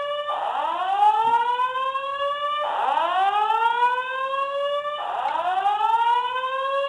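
Building fire alarm sounding a whoop tone: a pitch that sweeps up and levels off, repeating back to back about every two and a third seconds, three times over.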